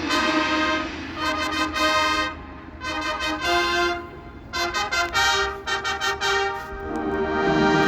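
Marching band brass playing loud held chords in short fanfare-like phrases, each lasting a second or two and separated by brief breaks.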